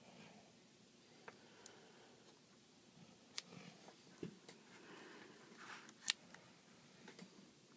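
Faint, scattered clicks, taps and soft rustles from handling the iPad's glass screen and small parts, with a sharper click about six seconds in.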